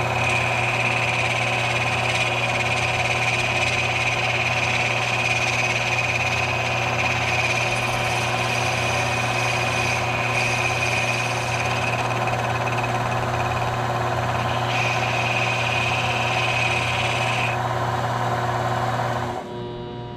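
A benchtop mini metal lathe runs steadily with a constant hum and a high whine, spinning a pool cue as its tip end is turned down with a cutting tool. The motor shuts off near the end.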